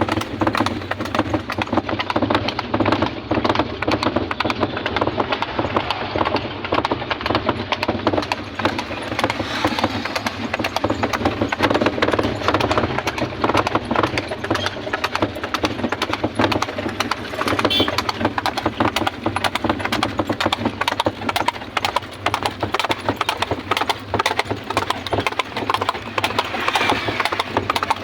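Horse hooves clip-clopping in a continuous run of closely spaced hoofbeats as the horse is ridden.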